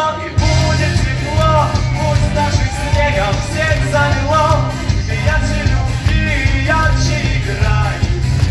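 A man singing into a microphone over amplified backing music with a steady, heavy beat.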